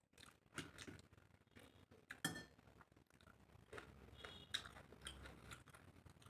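Quiet eating by hand: fingers working rice and prawn curry on a plate, and chewing, heard as scattered soft clicks. A short ringing clink comes about two seconds in.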